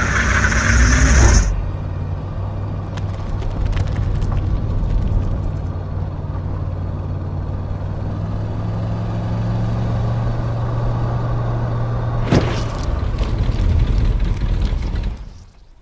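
Steady low rumble of a running vehicle, with a deep even hum, after a louder noisy sound with a rising tone cuts off about a second and a half in. A single sharp click comes near the end, just before the rumble fades out.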